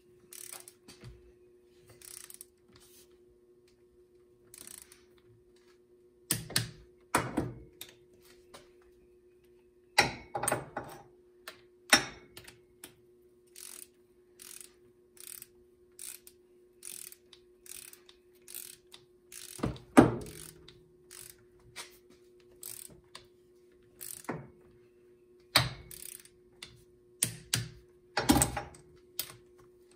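Socket ratchet clicking in short runs as bolts on a Polaris RZR 800 cylinder head are tightened, with a few louder metal clanks from the tool. A faint steady hum runs underneath.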